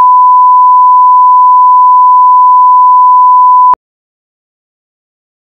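Broadcast bars-and-tone line-up signal: a single steady, very high-pitched, loud test tone that cuts off abruptly about three and a half seconds in, followed by dead silence.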